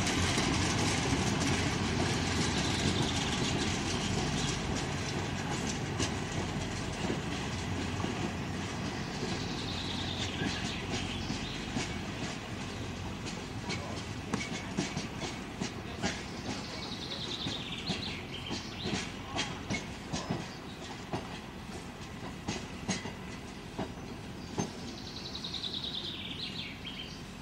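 Narrow-gauge passenger train running away along the track, its rumble fading, with the wheels clicking sharply over the rail joints.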